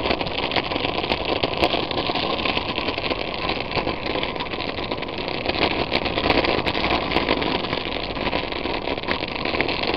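Steady rushing and crackling noise of riding along an asphalt path: wind buffeting the microphone over the rumble of wheels on the pavement.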